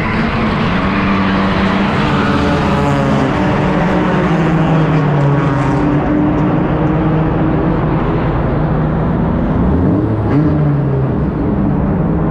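Sport compact race car's engine heard from inside the car, running with its pitch drifting slowly up and down and a quick dip and rise near the end, over a steady rush of noise. From the middle on, the car sits nearly still after contact with another car.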